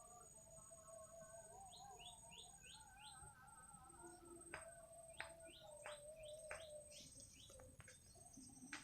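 Faint birdsong: wavering warbled whistles and runs of short, quick falling chirps, with a few sharp clicks.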